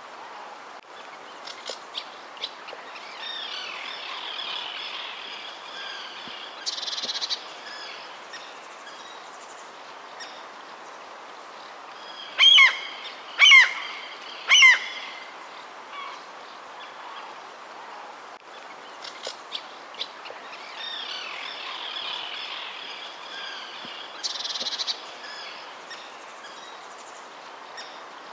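Wild birds chirping and calling over a steady background hiss, with three loud, sharp gliding calls in quick succession about halfway through.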